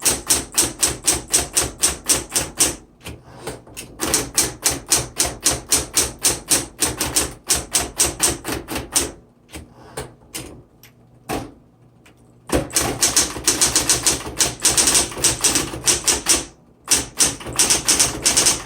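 Smith Corona Electra 120 electric typewriter typing capitals: runs of quick, evenly spaced key strikes, about six or seven a second, broken by short pauses. The steady low hum of its running motor sits underneath.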